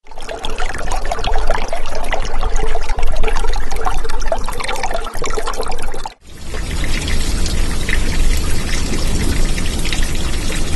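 Water pouring and trickling, with many small crackles, starting abruptly. About six seconds in it cuts out for a moment and comes back as a duller, lower rush.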